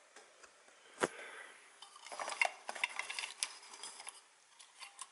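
Clock parts being handled on a workbench: the clock housing and small metal pieces knocking and clinking, with one sharp knock about a second in, then a run of light clicks and clinks.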